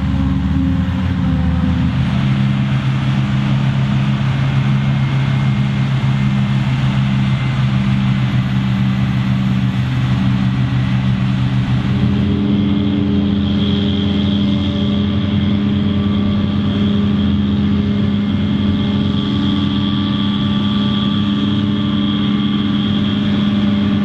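Diesel engines of maize silage harvest machinery running steadily: first a Fendt tractor pulling a silage trailer beside the harvester. About halfway through, the sound changes to a New Holland self-propelled forage harvester chopping maize, its engine drone joined by a steady high whine.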